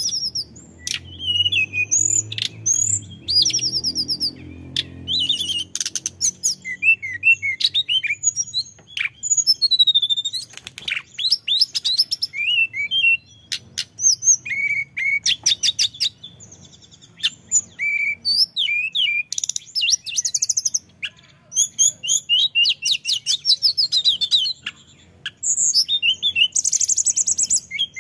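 Male hill blue flycatcher (tledekan gunung) singing almost without a break: a long run of high, rapid warbling phrases, trills and quick whistled slides, with only short pauses between them.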